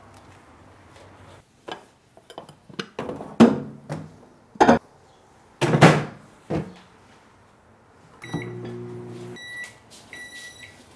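Countertop microwave oven handled and run: a string of sharp clicks and knocks as the glass bowl goes in and the door is shut. Then about a second of the oven's hum, and a run of short, high beeps near the end, the signal that the heating cycle has finished.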